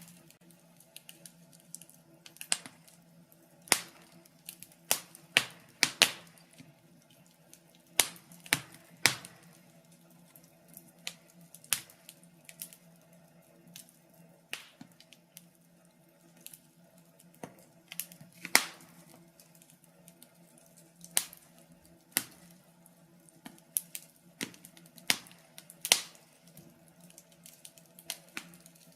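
Wood fire in a fireplace crackling, with irregular sharp pops and snaps, a few much louder than the rest, over a faint steady background.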